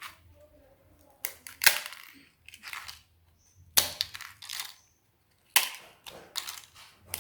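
Crisp potato papad (aloo papad) crunching in about four short bursts of sharp crackles, each burst a quick run of several cracks.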